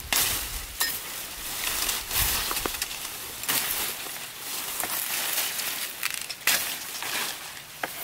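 A machete chopping through tall grass stalks: about six sharp cuts at uneven intervals, with the leaves rustling in between.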